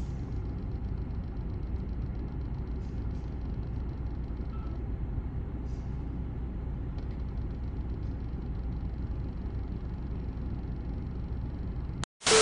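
Concrete mixer truck's diesel engine running steadily at low revs as the truck creeps forward: an even, low rumble that holds unchanged throughout.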